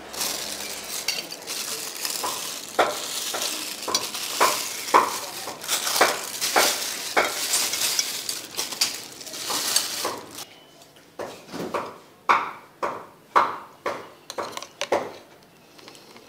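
Metal spoon clinking and scraping against a plate as a dish of curry, noodles and shredded cabbage is stirred together. For the first ten seconds or so the clinks sit over a steady hiss. Then the hiss stops and sharper clinks ring out about twice a second.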